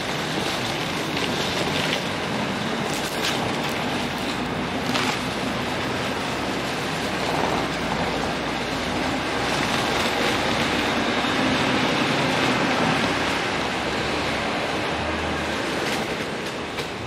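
Wheels of a hard-shell rolling suitcase running over pavement, a steady rolling noise with occasional clicks, along with walking footsteps.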